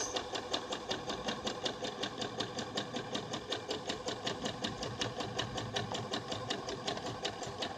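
Electric sewing machine running at medium speed, stitching a zig-zag rolled hem along a saree edge. Its needle strokes come in a steady, even run of about six or seven a second over the motor's hum.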